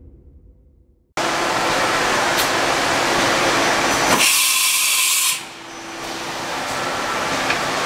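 Intro music fading out, then, about a second in, a loud steady hiss of running machinery with a faint low hum starts abruptly. For about a second near the middle, a higher, sharper hiss like a blast of air takes over before the broad hiss returns.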